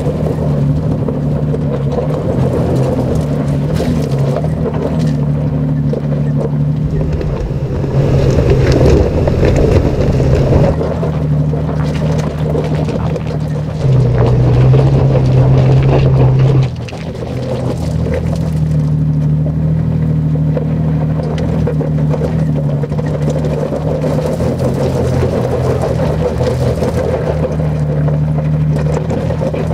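2020 Toyota 4Runner TRD Pro's 4.0-litre V6 engine running steadily under load as it climbs a steep gravel track. The engine note gets louder for a few seconds about halfway through, then drops suddenly.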